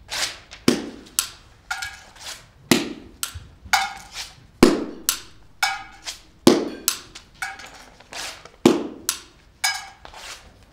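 Percussion music: a steady pattern of sharp wooden knocks and deeper drum-like hits, about two strikes a second.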